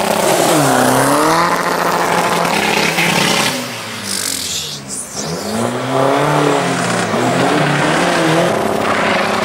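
Tuned Seat Ibiza diesel revving hard as it launches from the drag-strip start and accelerates away. The engine pitch climbs and drops again and again. The sound dips briefly about four seconds in, then more hard revving follows.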